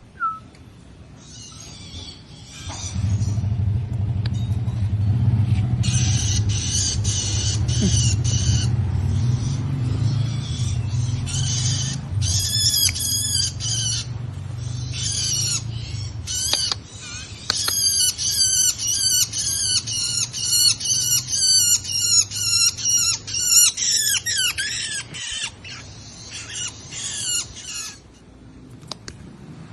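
Small caged songbirds calling in quick runs of high, repeated chattering notes, with a low steady hum underneath through the first half.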